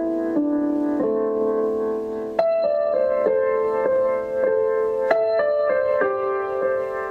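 Slow, calm background music played on a keyboard, with sustained notes; about two and a half seconds in it turns brighter, with a new note about every half second.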